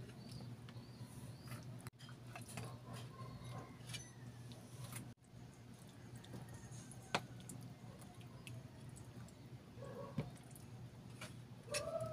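Saucy chicken barbecue pieces being poured and pressed onto rice on a wooden plate: faint wet squelches, small plops and clicks over a low steady hum.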